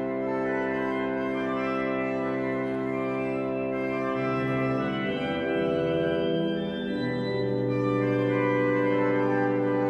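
Arp Schnitger pipe organ playing a baroque chorale fantasia: full sustained chords held over a low bass note, the harmony changing about four and again about seven seconds in.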